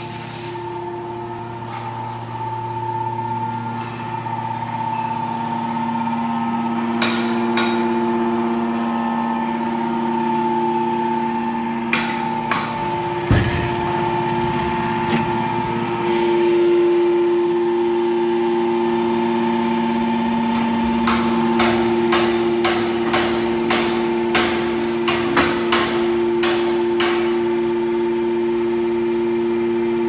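Hydraulic power unit of a 200-ton scrap metal baler running with a steady hum of several tones that changes in balance about halfway through. Sharp metallic clicks and knocks sound over it, a few scattered at first, then about a dozen in quick succession in the later part.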